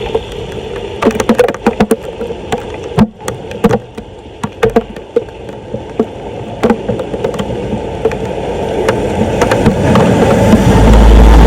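Irregular sharp knocks and clatter over a steady wash of noise, with a loud low rumble taking over near the end.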